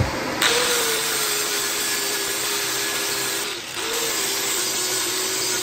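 Handheld electric power tool sanding back fiberglass around holes in a boat's interior. It makes a steady whine with gritty abrasive noise, and the whine sags briefly under load about three and a half seconds in.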